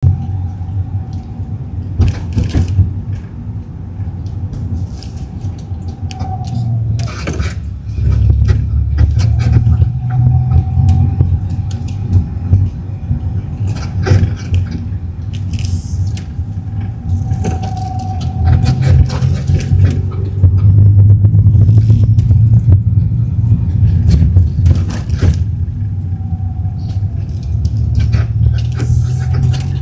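Honda Torneo Euro R with a low rumble that swells and eases, broken by repeated sharp knocks and clunks and a faint tone that comes and goes. This is an abnormal noise the owner blames on the suspension: fitting Tein coilovers has not cured it.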